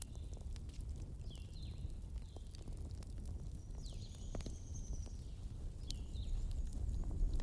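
Wood fire burning, with a steady low rumble and scattered sharp crackles and pops. Several short, high, falling chirps sound over it.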